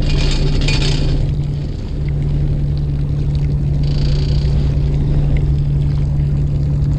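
A fishing boat's engine running steadily with an even low hum.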